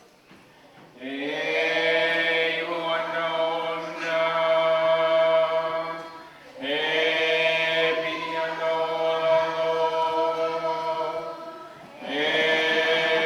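Group of voices chanting unaccompanied in long held notes, in phrases of about five seconds, each after a short breath-like pause.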